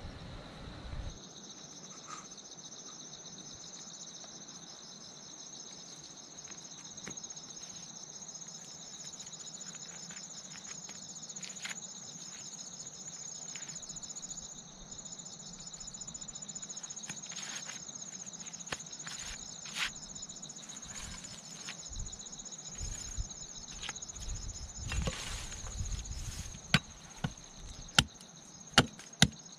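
Insects chirring steadily in high, pulsing tones. Near the end a machete chops into a wooden stick in a series of loud, sharp strokes.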